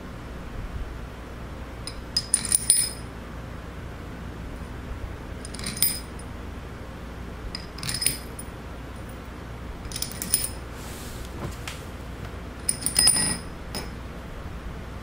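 Small metal parts clinking and clicking in five short bursts a few seconds apart, each with a bright metallic ring, the first and last the loudest, over a steady low hum.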